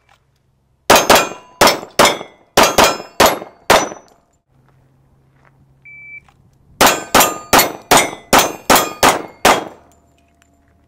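A pistol fires a rapid string of about seven shots at steel targets, each hit ringing out as a metallic clang. A shot timer then beeps once, and a second rapid string of about nine shots and steel clangs follows.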